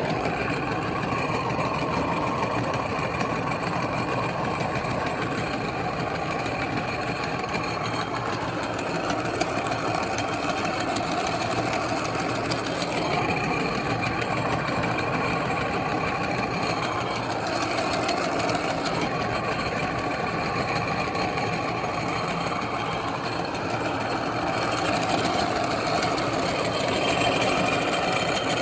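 Electric meat grinder's motor running steadily under load as it grinds bubble gum, getting a little louder near the end.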